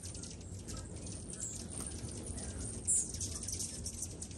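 A crowd of hummingbirds at feeders, chirping in rapid, high-pitched chips over a steady low hum. One louder, sharper chirp stands out about three seconds in.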